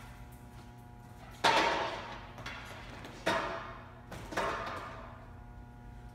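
Three sharp metallic knocks as a framed panel is set onto an aluminium-extrusion stand. Each rings on briefly, and the first is the loudest. A steady electrical hum runs underneath.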